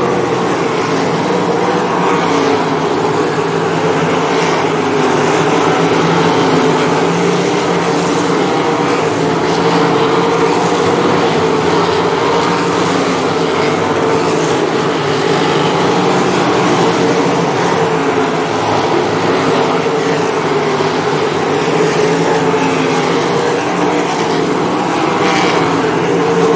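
Several 305 sprint cars' V8 engines running hard around a dirt oval, blended into one continuous engine sound whose pitch wavers slightly as the cars circle the track.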